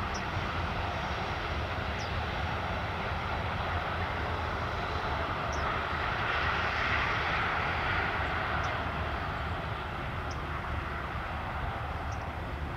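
Boeing 737's CFM56 turbofan engines running at taxi power: a steady jet whine and rush that swells a little about halfway through as the airliner rolls past.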